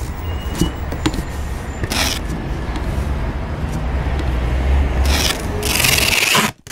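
Busy city street sound: a steady low traffic rumble with noisy bursts of hiss and a few clicks, cut off abruptly near the end.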